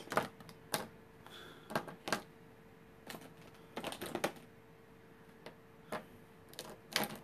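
Irregular light plastic clicks and clacks of Copic alcohol markers being picked up, sorted and set down, some in quick clusters, over a faint steady hum.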